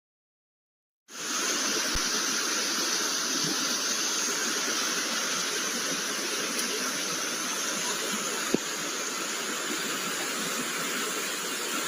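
Silence for about a second, then a steady rushing hiss of floodwater running over a road.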